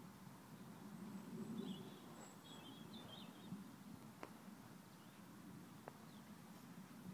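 Faint outdoor background with a low rumble, a bird chirping a few times about two to three seconds in, and two soft clicks later on.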